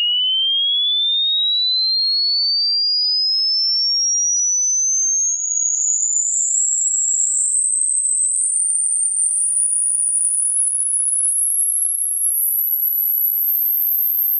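Hearing-test tone: a single pure tone sweeping upward from high to very high pitch. It glides smoothly at first, and from about five seconds in it climbs in small steps about once a second.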